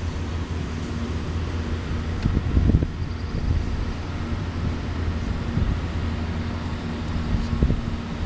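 Diesel engines of Caterpillar 740 articulated dump trucks and other earthmoving machines running with a steady low hum. Gusts of wind buffet the microphone a couple of times, near the middle and near the end.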